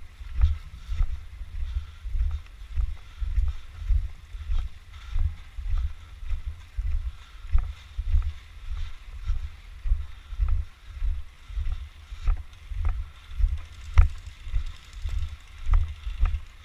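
Footsteps of a player walking, thudding on a body-worn camera at a steady pace of about two a second, with a few faint sharp clicks scattered through; the loudest click comes near the end.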